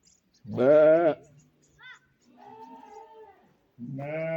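Sheep bleating three times: a loud, wavering bleat about half a second in, a fainter one around two and a half seconds, and another starting near the end.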